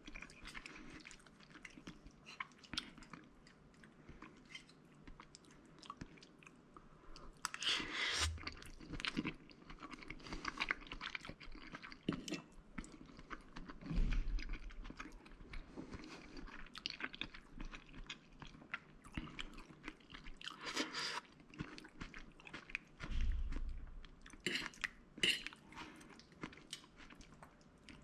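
Close-up chewing of spaghetti with prawns, with irregular small clicks of fork and spoon on the plate and a couple of dull low thumps.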